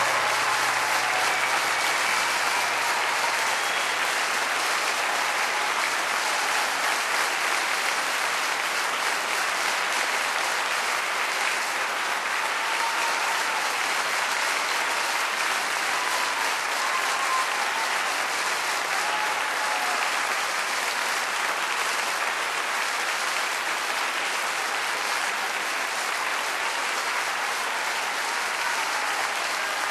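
A live audience applauding at length after a song: steady, dense clapping that eases off slightly toward the end.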